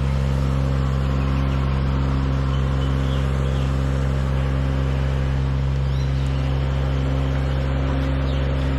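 Engine of a compact aerial lift running at a steady, unchanging speed.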